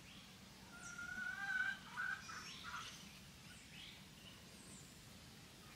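Faint bird calls near a feeding flock of chickens: a drawn-out pitched call about a second in, then a few short chirps and some thin high peeps.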